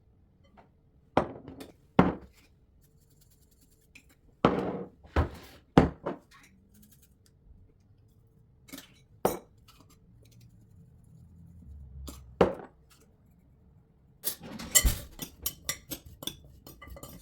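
Kitchen containers and dishes clinking and knocking as they are picked up and set down, in single knocks at irregular times, then a quick run of clatter near the end.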